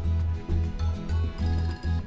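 Background music with a pulsing bass line, the deep bass note repeating about three times a second.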